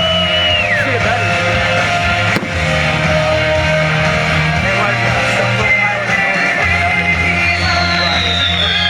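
Rock music with electric guitar and singing at a steady loud level, with one sharp crack about two and a half seconds in.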